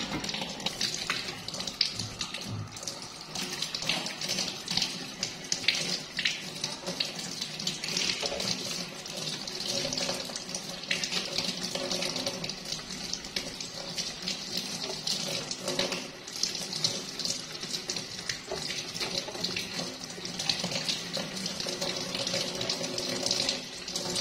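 Water running from a kitchen tap and splashing into a stainless-steel sink as hands are rinsed under the stream, a steady rush with small irregular splashes.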